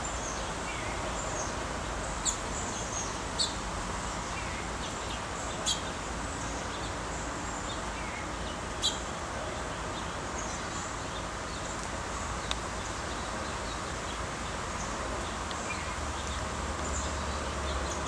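Steady backyard ambience, an even outdoor hiss, with a few faint bird chirps and five or six sharp, isolated ticks spaced a few seconds apart.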